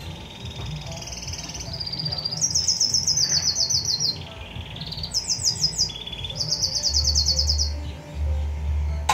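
A caged songbird singing: a run of high whistled notes, then three rapid trills of quickly falling notes, each about a second long, with short whistles between them.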